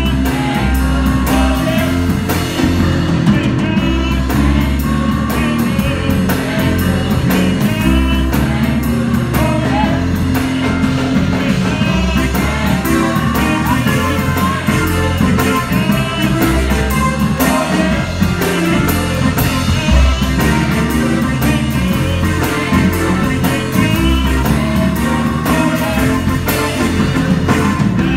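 Gospel choir singing with a Hammond-style console organ and a drum kit keeping the beat.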